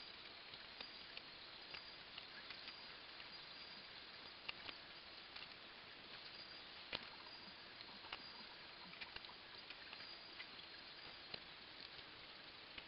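Faint scratching of pastels on paper: a steady low hiss with scattered soft clicks and taps at irregular times, the sharpest about seven seconds in.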